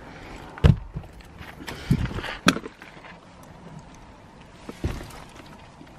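Handling noise inside a car as someone gets in and sets a bag down on the passenger seat: three dull thumps and one sharp click, with soft rustling between them.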